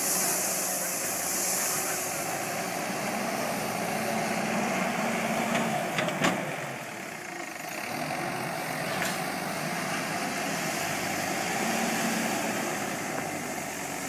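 Diesel engine of an ABEL backhoe loader running steadily under load as the front bucket works a pile of earth, with two sharp metallic knocks about six seconds in.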